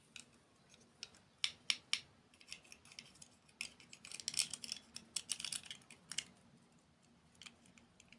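Crunchy dessert being bitten and chewed close to the microphone: a few sharp cracks, then a dense run of crackling crunches about four to six seconds in.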